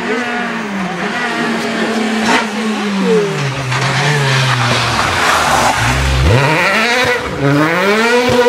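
Rally car engine with revs falling as the car brakes into a tight bend, tyres skidding through the turn about five to six seconds in, then revs rising steeply as it accelerates away.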